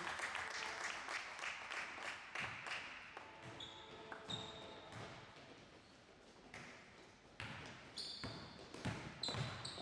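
Basketball game sounds on a hardwood gym floor: sneakers squeaking and scuffing as players run the court, and a basketball dribbled several times near the end.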